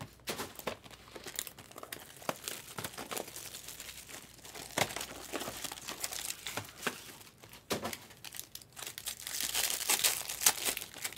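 Clear cellophane wrap and a foil 2023 Topps Chrome trading-card pack crinkling in hands as the pack is worked open, irregular crackles that grow busier near the end.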